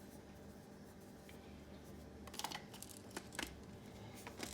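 A few faint, irregular plastic clicks and rattles as the battery compartment of an electric pepper grinder, loaded with AAA batteries, is handled and fitted together.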